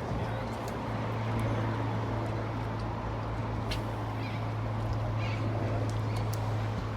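A steady low motor drone over wind noise, stopping just before the end, with a few faint short bird calls.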